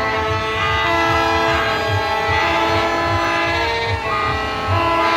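Loud music with sustained, horn-like chords that change every second or so over a steady thumping beat.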